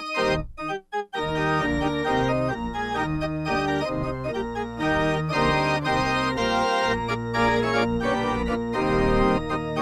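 Electronic organ playing, with held chords over sustained bass notes and a moving upper line. There is a short break of near silence about half a second in, then continuous playing.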